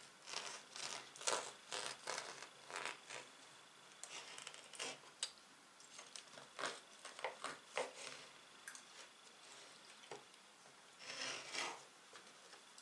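Knife sawing through a round loaf of fresh bread on a wooden cutting board: a series of short, faint strokes through the crust, with a longer stroke about eleven seconds in.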